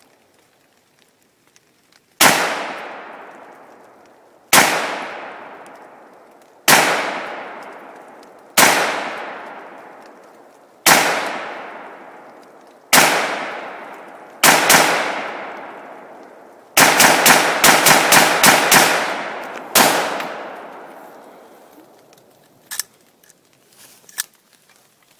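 AR-15 rifle firing: six single shots about two seconds apart, a quick double, then a rapid string of about eight shots and one final shot, each echoing away over a second or two.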